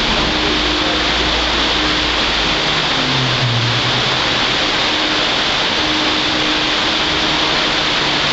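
Steady loud rushing noise with a faint low hum that comes and goes, as a Wuppertal Schwebebahn suspended train runs slowly along its overhead rail into a station.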